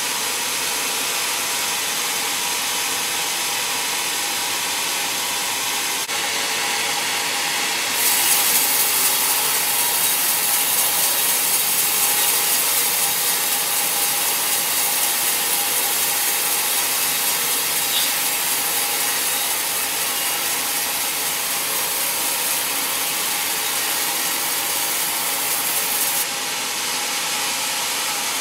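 Band sawmill blade cutting lengthwise through a teak log, a steady rasping saw noise. About eight seconds in the cut gets louder and hissier, and it drops back to the lighter level shortly before the end.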